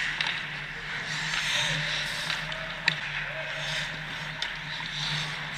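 Ice hockey skate blades scraping and carving on rink ice, over a steady low hum, with a sharp clack about three seconds in and a few lighter clicks.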